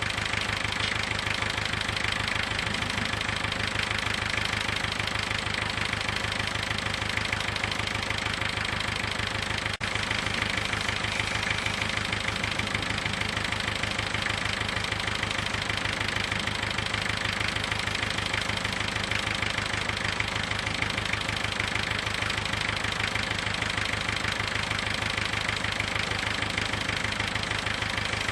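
An engine running steadily at a constant speed, with a fast, even pulse and no change in pitch or level.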